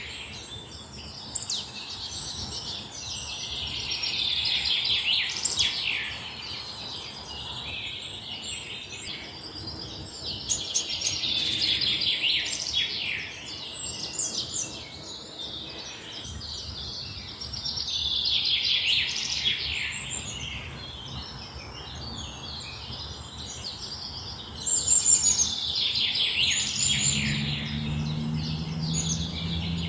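Small birds twittering in repeated bursts of rapid, high chirps and trills, each burst a few seconds long and several seconds apart, over a steady background hiss.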